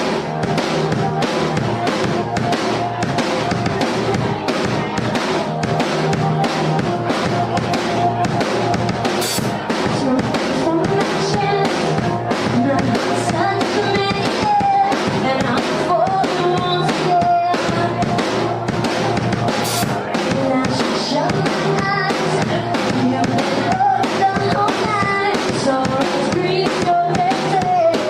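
A live pop-rock band playing, with a full drum kit keeping a steady beat of bass drum and snare over electric guitar and bass.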